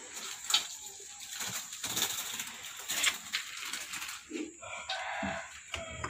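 Rattling and scraping of a wire birdcage being handled, with a white-rumped shama fluttering its wings inside. A short squeaky call comes about five seconds in.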